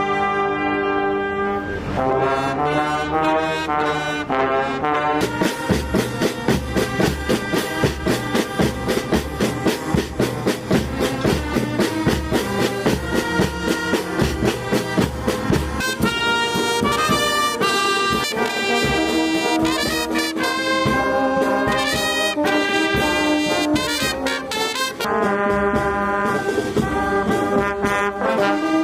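Background music led by brass instruments, with a steady pulsing beat through the middle stretch.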